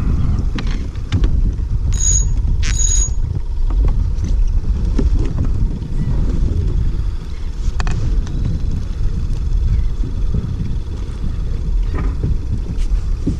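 Wind buffeting the microphone on a kayak, a steady low rumble, with scattered small clicks and knocks. Two short, high metallic rings come about two and three seconds in.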